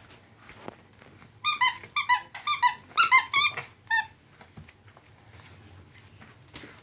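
Rubber squeaky pet toy squeezed in quick succession: about ten short squeaks, many in pairs, starting about a second and a half in and ending about four seconds in.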